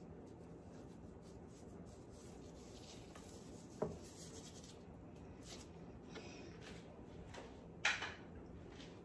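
Faint rubbing and handling as a gloved hand works seasoning into raw salmon fillets and turns one over, with a soft knock about four seconds in and a sharper knock near the end.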